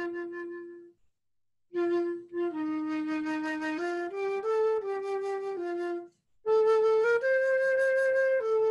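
A solo woodwind, flute-like in tone, plays a slow Easter hymn melody one held note at a time, in phrases broken by short breath pauses about a second in and again around six seconds in.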